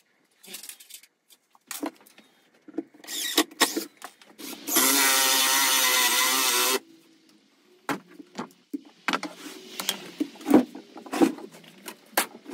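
Red Milwaukee electric drill running steadily for about two seconds near the middle, drilling up into the underside of the pine tabletop. Scattered knocks and clatter of wood and tool handling before and after.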